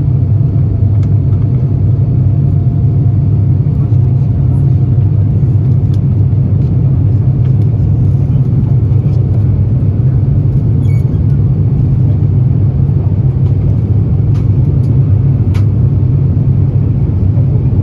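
Cabin noise of an Airbus A350-900 in its climb after takeoff: a loud, steady low rumble from its Rolls-Royce Trent XWB engines and the rushing airflow, with a couple of faint clicks.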